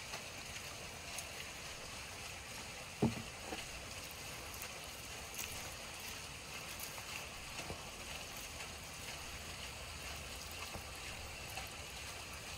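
Hands tearing roasted chicken off the bone on a wooden cutting board: small scattered clicks and one sharp knock about three seconds in, over a steady rushing background.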